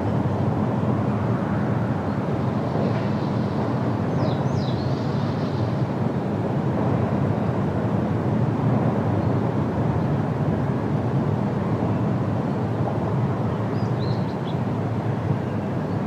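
Steady low rushing outdoor ambience with faint high bird chirps about four seconds in and again near the end.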